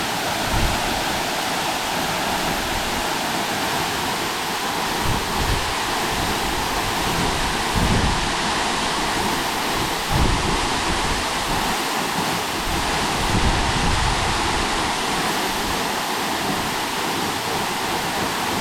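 Waterfall pouring: a steady, dense rush of falling water. A few short low rumbles of wind on the microphone come and go.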